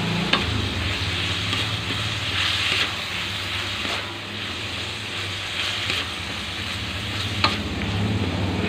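Chicken and shredded cabbage and carrots sizzling in a wok as a wooden spatula tosses them, over a steady low hum. Two sharp knocks of the spatula on the pan, one just after the start and one near the end.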